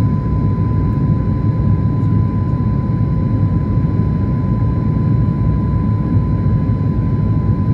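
Airliner cabin noise during the climb after takeoff: a loud, steady low rumble from the engines and airflow, with a thin steady high tone above it.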